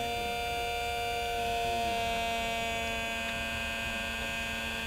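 Small electric motor running steadily with a buzzing hum made of several steady tones.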